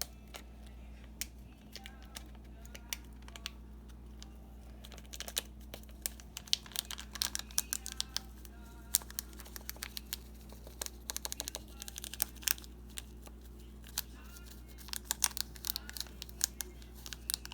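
Rapid, irregular clicks and scrapes of a spoon against a bowl, stirring dry bath bomb powder, with some crinkling of a plastic packet. The clicks grow busier about five seconds in, over a steady low hum.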